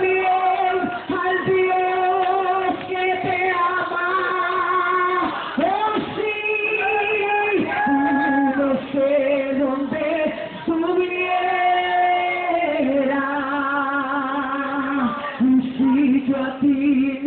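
A woman singing a worship song into a microphone, holding long notes with vibrato.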